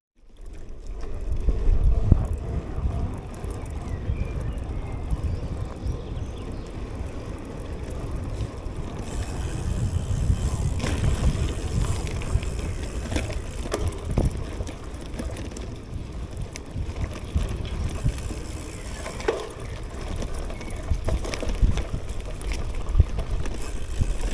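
CUBE Cross Race gravel bike being ridden over rough ground: a steady low tyre rumble and wind buffeting the action camera's microphone, with scattered clicks and rattles from the bike over bumps.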